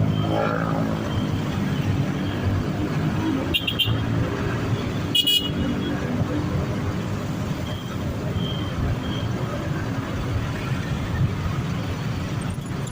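Busway traffic: bus engines and road noise running steadily, with two brief high-pitched toots about a second and a half apart a few seconds in.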